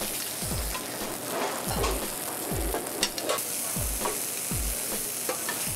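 Floured skin-on fish pieces sizzling as they sear in oil in a hot stainless sauté pan, with a few sharp clicks of the pan about three seconds in. Background music with a steady deep beat runs underneath.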